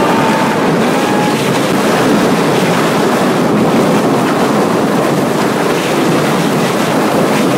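Steady, loud rushing noise of a flat-bottom boat being towed fast, with wind buffeting the microphone.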